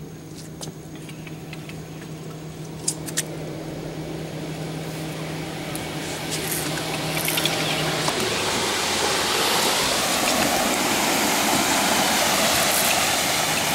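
Motorboat engine noise growing steadily louder, with a low steady hum that drops out about eight seconds in.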